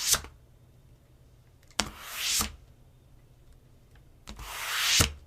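Sliding sound effects: something slides along a surface and stops with a knock, twice, about two seconds apart, after the last knock of an earlier slide right at the start. Each slide opens with a click and grows into a louder hiss over about two-thirds of a second before stopping sharply.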